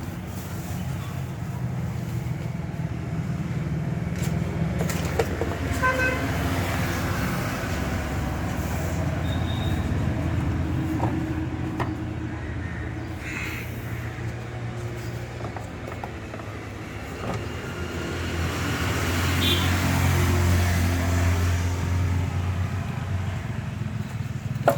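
Road traffic: a vehicle engine runs steadily with a low hum, and a horn toots briefly about six seconds in. The traffic grows louder for a few seconds about three quarters of the way through.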